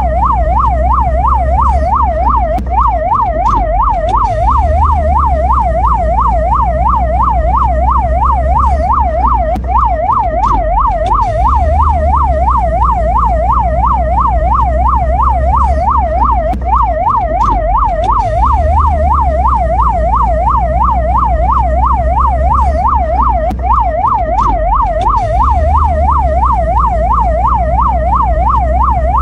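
Ambulance siren in rapid yelp mode, its tone sweeping up and down about three times a second without a break, over a deep steady rumble.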